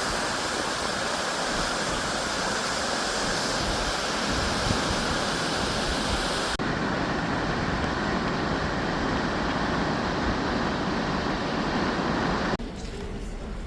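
Steady rushing of heavy falling water, like a waterfall in full flow. The sound changes abruptly about six and a half seconds in and drops in level near the end.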